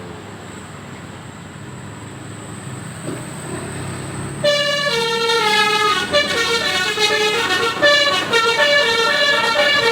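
A bus engine running, then about halfway in a basuri telolet horn, an Indonesian bus's multi-note musical horn, starts playing a quick tune of stepped notes, loud and louder than the engine.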